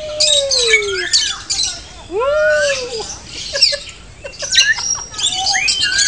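A flock of lovebirds calling together: shrill chirps and squawks overlapping, with several longer calls that rise and then fall in pitch.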